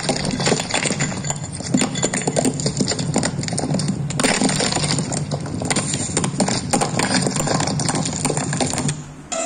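Continuous rattling and clinking: a dense run of small knocks that breaks off briefly about four seconds in, then carries on and cuts off suddenly near the end.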